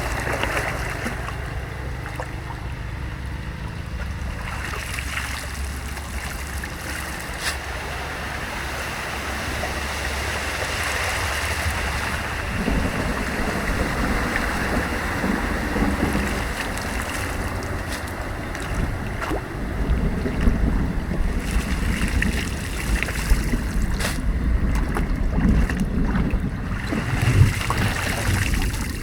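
Moving floodwater churning and splashing, with wind buffeting the microphone in low rumbles that grow stronger in the second half. A few brief knocks.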